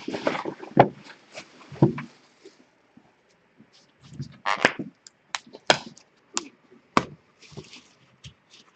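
Handling of a trading card box and pack: a run of sharp clicks and knocks with a few short rustles of packaging.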